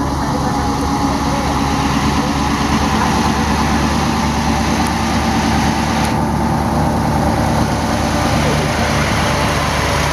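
Diesel dump truck climbing a steep grade, its engine running steadily under load as it approaches and passes.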